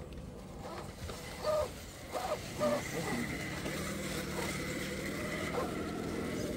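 Electric drive motor and gearbox of an RC rock crawler running, settling into a steady whine from about halfway, with a few short blips in the first half.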